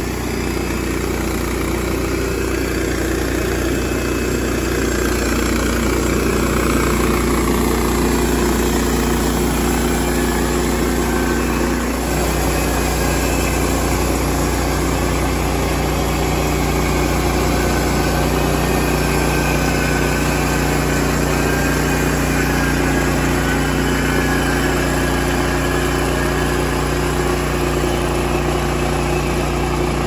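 Gasoline engine of a Woodland Mills portable band sawmill running steadily under load as the band blade saws through an eastern cedar log. It gets a little louder about five seconds in.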